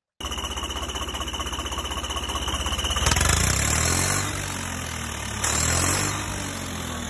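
Tractor engine sound effect that starts abruptly and runs at a steady idle, revving up about three seconds in and again about five seconds in before settling back.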